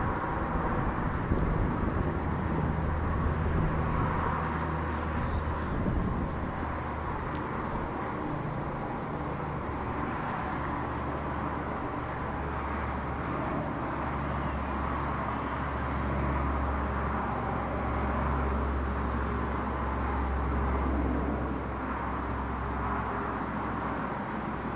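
Wind buffeting the microphone: a steady low rumble with a rushing hiss above it, swelling and easing a little.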